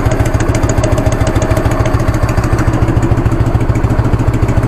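Harley-Davidson Evolution 1340 air-cooled V-twin idling steadily with a pulsing beat. A light valve-train tick remains from the rear cylinder's freshly readjusted exhaust pushrod, which the owner puts down to cold oil not yet reaching the hydraulic lifter.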